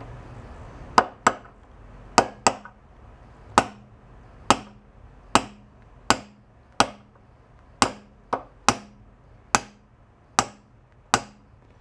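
Ball-peen hammer striking a punch, about fifteen sharp metallic taps roughly once a second, some in quick pairs, each with a short ring. The punch is driving a keyed shaft out of the centre of a 1941 Farmall A engine part clamped in a vise.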